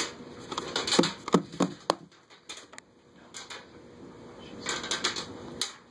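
Plastic Blu-ray cases being handled and set down on a wooden table: a quick run of light clacks and knocks in the first two seconds, a quieter stretch, then another cluster of clacks near the end.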